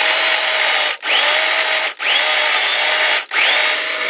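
A small electric motor run in four short bursts of about a second each, every burst spinning up with a rising whine and then holding steady.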